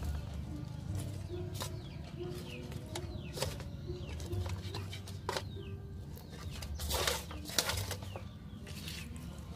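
Hands handling a raw whole chicken while stuffing it with leaves and lemongrass: scattered wet clicks and rustles against a steady low hum, with a short burst of handling noise about seven seconds in. Faint short bird calls in the background.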